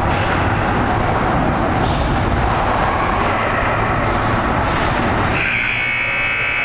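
Rink noise from a youth ice hockey game, then about five seconds in an arena buzzer starts. It holds one steady high-pitched tone.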